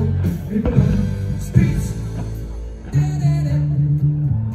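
Music with steady sustained bass notes and a few sharp percussive hits.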